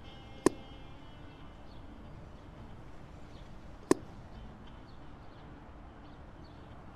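Two sharp shot reports from a 9mm EDgun Leshiy 2 PCP air rifle, about three and a half seconds apart. The first is followed by a brief metallic ring.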